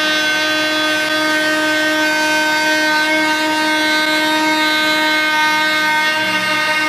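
Rockwell Sonicrafter oscillating multi-tool running steadily with a loud, even buzzing whine, its blade cutting through drywall.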